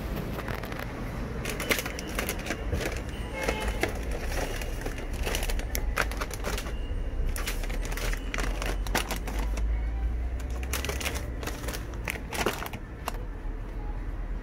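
Snack bags rustling and clicking as they are handled, over a low steady rumble, with background music.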